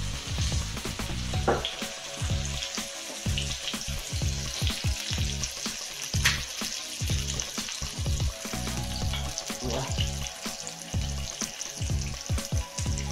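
Salmon trout fillet sizzling in hot oil in a frying pan, with low knocks and a couple of sharp clinks as the pan is handled.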